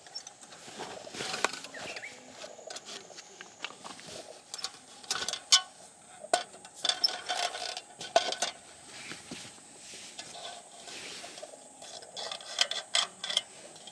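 Irregular sharp knocks and cracks of hard firewood being split and handled, in clusters, loudest about five and eight seconds in.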